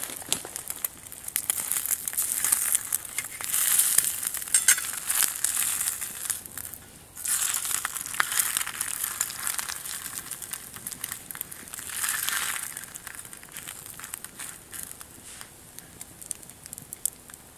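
Eggs sizzling in oil on a metal cookpot lid over a wood fire, with crackling underneath. The sizzle swells three times as the eggs are pushed around the hot lid, then settles down near the end.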